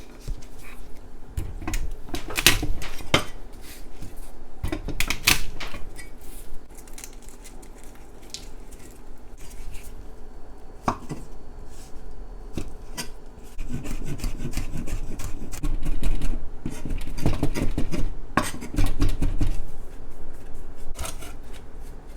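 Knife working garlic cloves on a cutting board: irregular knocks and taps of the blade against the board.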